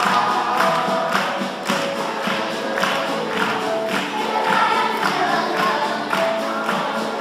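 Children's choir singing a song with acoustic guitar accompaniment and a steady beat of a little under two strokes a second.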